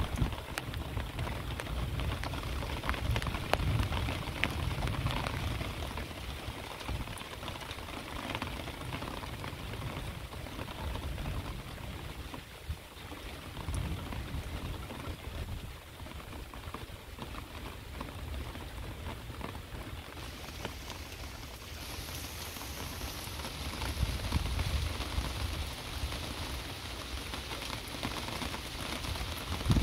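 Heavy rain falling steadily, a dense hiss full of small drop ticks, with low rumbles near the start and again about three-quarters of the way through. The rain hiss grows brighter about two-thirds of the way in.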